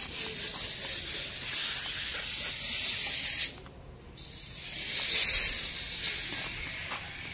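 A steady, high-pitched hiss, like air spraying. It cuts out abruptly for about half a second a little after three seconds in, then comes back louder.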